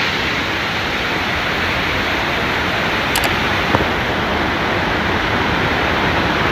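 Shifen Waterfall: a steady, loud rush of falling water.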